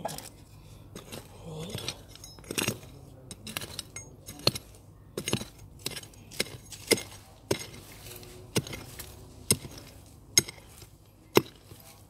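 A small metal hand hoe chopping repeatedly into stony soil. There are about a dozen sharp strikes roughly a second apart, the blade clinking on stones as it bites.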